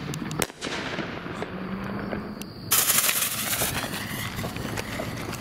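Consumer firework artillery shell firing: a sharp bang about half a second in, then steady crackling. Near the three-second mark a sudden loud rush of dense crackle and hiss starts, and it keeps going more softly to the end.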